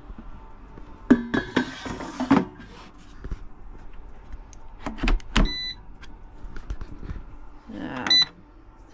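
Lakeland air fryer being handled: its pizza-loaded basket clatters and knocks, then pushes home with a sharp click about halfway through. Short electronic beeps come from its control panel, one just after the click and another near the end.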